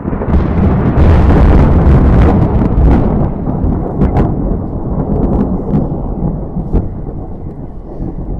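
Thunder rumbling: a deep roll that swells about a second in, stays loudest for a couple of seconds, then slowly fades, with a few sharp clicks in its tail.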